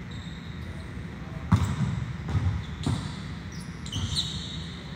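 Volleyballs being struck and bouncing on a gym floor: about four dull thuds, the loudest about a second and a half in, with a short high squeak near the end.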